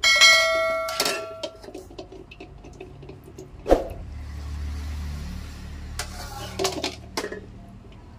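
A bright bell-like chime that rings and dies away over about a second and a half, then a sharp knock and a few light clinks of a utensil against a plate.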